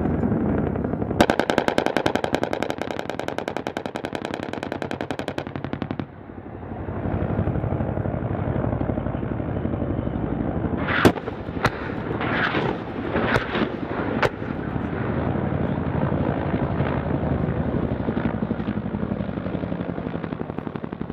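A helicopter's rotary gun fires one long rapid burst of about four seconds over a steady rumble. Midway, a handful of separate sharp cracks follow, and the rumble carries on to the end.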